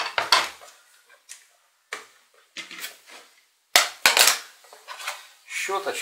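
Hard plastic clicks and knocks as the small cleaning tool, a brush with a blade comb, is unclipped from its holder under the lid of a Roborock robot vacuum. The loudest cluster of clicks comes about four seconds in.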